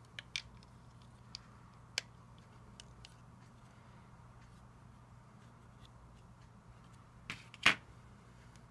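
Plastic Lego bricks handled and pressed together by hand: a few sharp, separate clicks in the first three seconds, then two louder knocks near the end.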